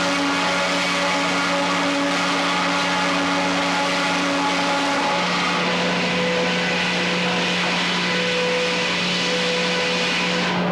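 Frick 00 circular sawmill running under load: a steady machine drone under a dense, high hiss from the blade cutting through wood.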